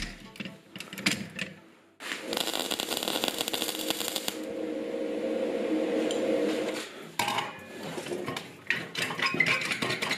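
Metal handling of a caulking-gun-style clamp mechanism, ribbed steel rod and steel tube: scattered clicks and clinks, with a sudden fast rattling and rasping starting about two seconds in that lasts about five seconds before giving way to more clicks.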